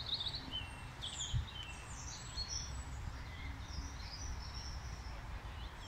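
Small songbirds chirping and calling, several short overlapping notes, over a low rumble, with a single thump about a second and a half in.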